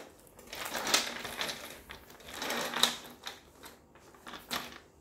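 A leather handbag and a wallet being handled: two spells of rustling and scraping, one starting about half a second in and one about two seconds in, with scattered sharp clicks after them.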